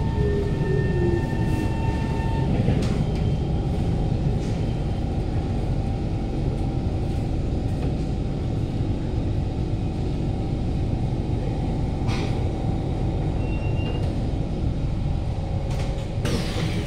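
Kawasaki Heavy Industries C151 train's GTO-VVVF traction motors and running gear, heard from inside the motor car as it runs slowly along a station platform. A falling motor whine fades in the first second or so and gives way to a steady rumble of wheels on rail; the wheels are free of flat spots, so there is no thumping. A sharp hiss comes near the end.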